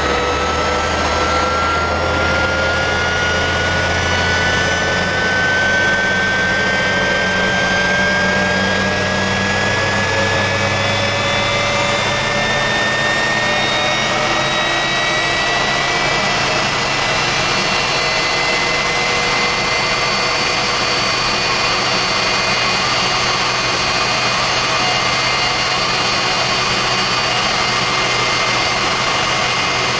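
Westinghouse J34 turbojet running on a pontoon boat, a loud steady jet noise with a whine that climbs slowly in pitch over roughly the first half as the engine speeds up, then holds steady.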